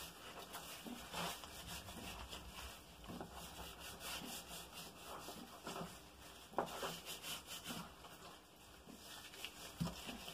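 Gloved hands rubbing and massaging a dry spice rub into a rack of raw pork ribs on a wooden chopping board: faint, irregular rubbing strokes, with a couple of louder taps about two-thirds through and near the end.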